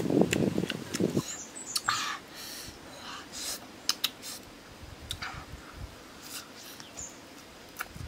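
Close-up chewing and lip-smacking while eating grilled catfish, with soft crackles as the flesh is picked off the bones. Loud and dense for about the first second, then softer, scattered smacks and crackles.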